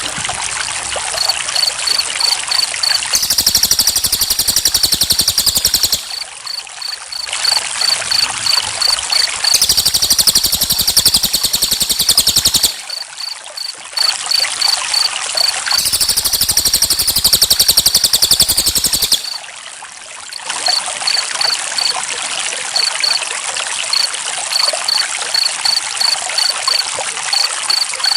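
Running water with crickets chirping in a steady rhythm. Three times, starting about three, ten and sixteen seconds in, a louder, very fast trill lasting about three seconds comes in over them.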